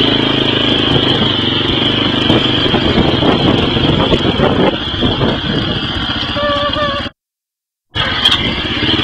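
ATV engine running hard while riding a rough dirt trail, with rattling and clatter from the bumpy ground through the middle. The sound cuts out completely for nearly a second about seven seconds in.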